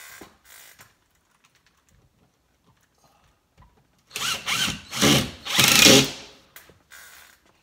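Cordless drill driving a screw up into a ceiling panel, its motor running in three short bursts about four to six seconds in, the last the loudest.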